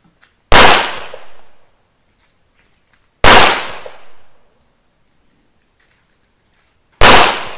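Three pistol shots, slowly spaced about three to four seconds apart, each loud crack trailing off over about a second.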